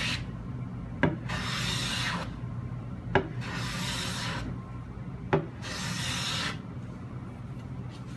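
Hand plane taking light finishing passes across a wooden panel: a hissing shaving stroke of about a second, repeated roughly every two seconds, each opening with a sharp click as the plane meets the wood.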